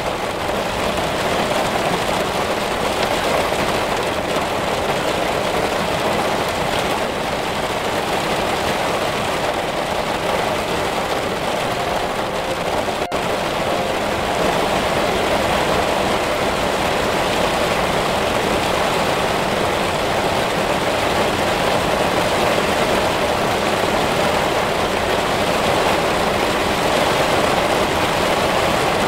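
Heavy rain falling steadily: an even, unbroken hiss of downpour, with a brief break about 13 seconds in where the recording cuts.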